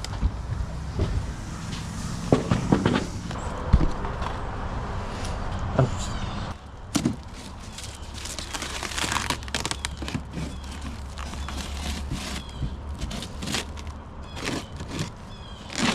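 Handling noises: irregular knocks and clatter with crackling rustles, scattered through the whole stretch, the loudest knocks a few seconds in.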